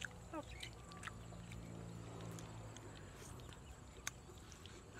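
Quiet outdoor background with a couple of short rising animal calls in the first half-second and a few sharp clicks. The clearest click, about four seconds in, is a bite into crispy fried chicken.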